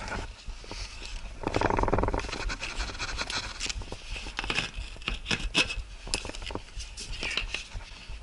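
Hands and shoes knocking and scraping on a rusty steel ladder and corrugated sheet-metal roofing while someone climbs up. Irregular metallic knocks and scuffs, with a longer scrape about two seconds in.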